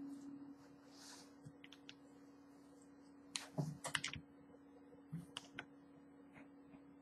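A fabric pen being picked up and its plastic cap pulled off: a quick cluster of small clicks and taps about halfway through, and a couple more a second or so later, over a steady low hum.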